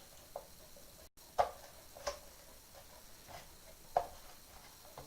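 A handful of light clicks and knocks, about a second apart, from plastic pipe fittings being handled and pushed together while being tried on a new sump pump's outlet.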